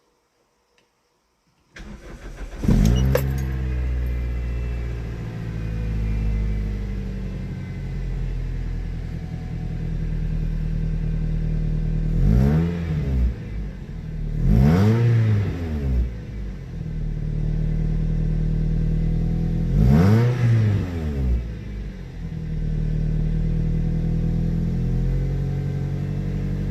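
Toyota Celica engine cranking and catching about two seconds in, then idling steadily through its exhaust, with three short throttle blips that rise and fall in pitch. The owner suspects an exhaust leak.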